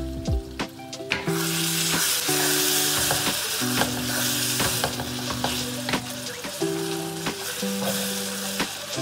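Eggplant, onion and tomato mash frying in hot oil in a wok: a few pops, then a loud steady sizzle from about a second in, over background music.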